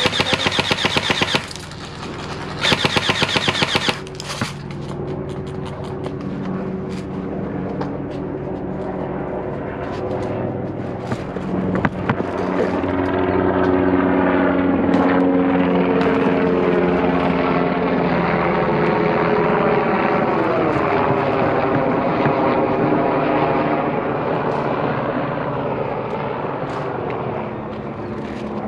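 Two bursts of rapid full-auto airsoft gun fire, each about a second long, in the first four seconds. Then a steady engine drone with several tones, louder through the middle and sliding in pitch.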